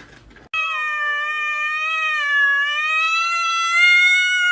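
A cat's single long drawn-out meow, starting about half a second in and held for about four seconds, its pitch wavering and slowly rising.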